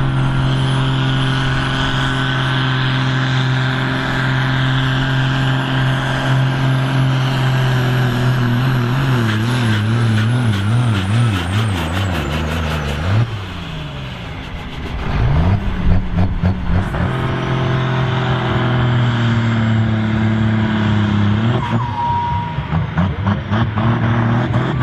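Ford 8700 tractor's six-cylinder diesel running flat out while pulling a sled: steady at first, then its engine speed wavers up and down as it labours under the load, drops sharply about thirteen seconds in and picks back up a couple of seconds later.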